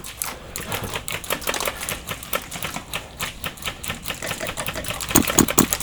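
Airsoft guns firing in a rapid, uneven run of clicking shots, several a second, with a few louder shots near the end.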